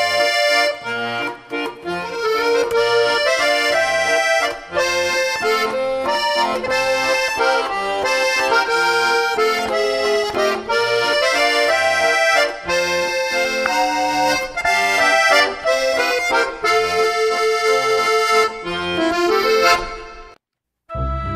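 Background music led by an accordion playing a quick tune. It cuts off suddenly near the end.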